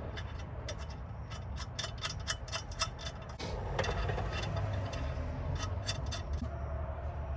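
Quick, light metallic clicks in irregular runs from hand tools working on engine hardware, over a steady low hum.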